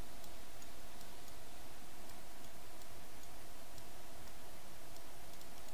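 Scattered faint computer mouse clicks, irregularly spaced, over a steady background hiss.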